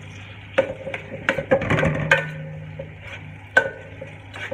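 A spatula knocking and scraping against a stainless steel frying pan while rice and ham are stirred and broken up: a series of sharp, irregular clacks, each leaving the pan ringing briefly.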